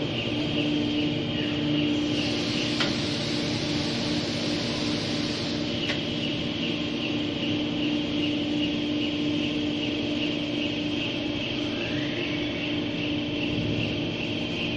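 Electric rail transfer cart, a KPX-45T flat car loaded with a die, running slowly along its rails: a steady motor hum with a high whine over it, and two short clicks about three and six seconds in.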